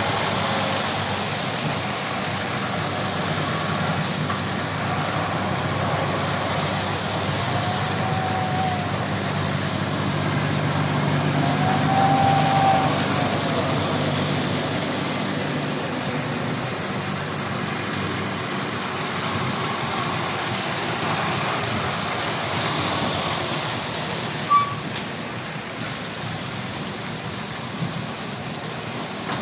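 Articulated lorries driving past one after another on wet tarmac: diesel engines running with tyre noise from the wet surface, the drone loudest about twelve seconds in. A couple of short whining tones come as they pass, and there is one sharp click near the end.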